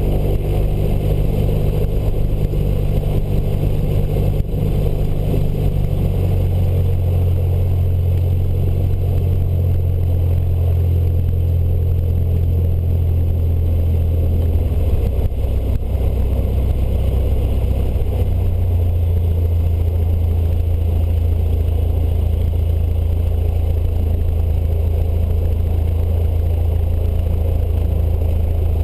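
Cessna 152's four-cylinder Lycoming O-235 engine and propeller running at low taxi power, heard inside the cabin. The engine note steps to a new pitch a few times as the throttle is moved.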